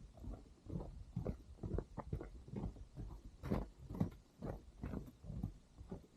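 Footsteps crunching through snow at a steady walking pace, about two steps a second.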